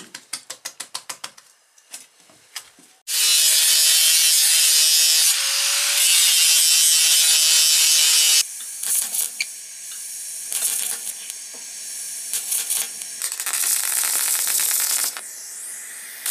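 A quick run of sharp clicks, then an angle grinder grinding a metal pipe for about five seconds, loud with a steady whine. It drops to the quieter crackling hiss of a stick welder joining the pipe to a steel gas bottle.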